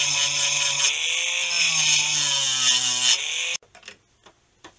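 Small rotary tool spinning a wire brush against a battery pack's balance-lead tab: a steady motor whine over a scratchy hiss, dipping in pitch each time the brush is pressed on. It cuts off abruptly about three and a half seconds in, followed by a few faint taps.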